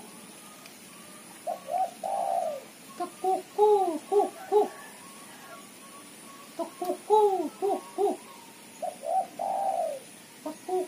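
Caged female spotted dove calling: phrases of short, arched coos with an occasional longer drawn-out coo, in bouts a few seconds apart.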